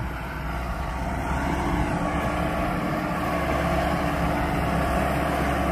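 Farm tractor engine running steadily under load as it pulls a chisel plow through the soil, growing gradually louder as it approaches.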